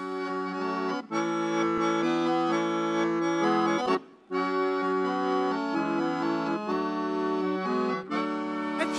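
Piano accordion playing sustained chords alone, with a brief break a little after four seconds.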